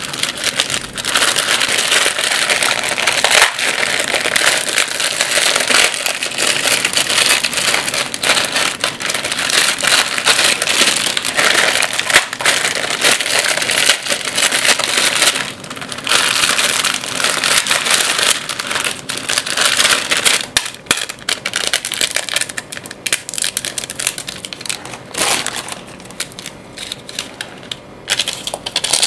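Plastic Maggi instant-noodle packets crinkling and being torn open, a dense crackle that thins to scattered crinkles over the last several seconds.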